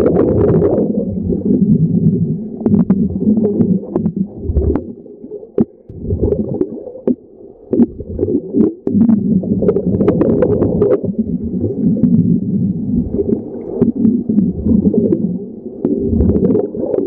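Underwater wet arc welding: a low bubbling, gurgling rumble of gas bubbles from the arc and the diver's gear, with irregular sharp crackles. It drops away for a few seconds about a third of the way in, then comes back.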